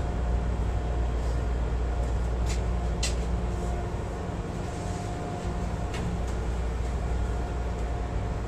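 Steady low hum inside a stationary CTA rapid transit railcar, its onboard equipment running while the train stands at the platform. There are three short sharp clicks, about two and a half, three and six seconds in.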